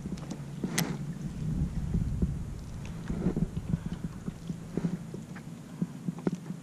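Small waves lapping and slapping against a plastic kayak hull, a scatter of soft irregular knocks over a low steady rumble, with one sharper click about a second in.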